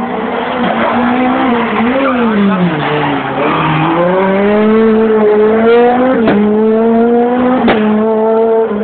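Renault Clio rally car's four-cylinder engine dropping in pitch as it slows into a hairpin, then revving up and holding a steady high note as it pulls away. Two sharp cracks come near the end, about a second and a half apart.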